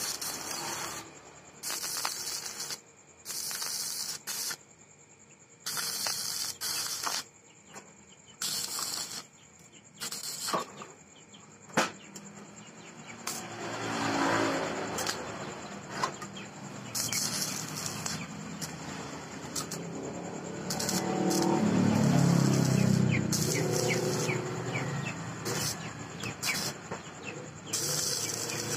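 Stick (MMA) arc welding: the arc crackles and sizzles in short bursts about a second long, stopping and starting again and again, as the steel is tack-welded. About two-thirds of the way through, a louder low sound swells and fades beneath it.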